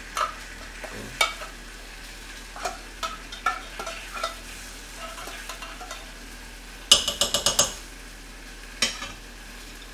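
Kimchi and canned tuna frying gently in oil in an earthenware pot, a steady faint sizzle. Over it come scattered clicks and scrapes of a utensil scraping tuna out of the can, with a quick run of taps about seven seconds in.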